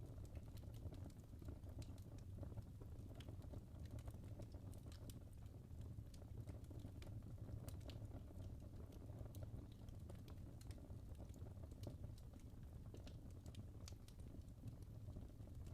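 Wood fire burning in a fireplace: irregular small crackles and pops from the burning logs over a low, steady rumble of the flames.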